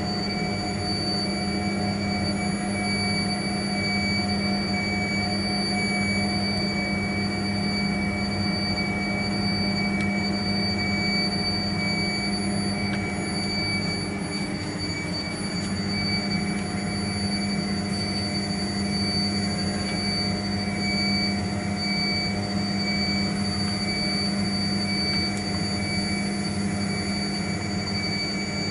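CK6160Q CNC alloy-wheel lathe running: a steady machine hum with high, constant whining tones and a low throb that pulses regularly.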